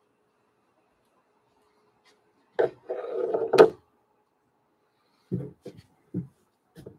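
Pastel pencils clattering in the wooden tray of an easel as one is picked out, with a sharp click about two and a half seconds in and a louder one about a second later. Then a few short strokes of a pastel pencil on gesso-coated watercolour paper.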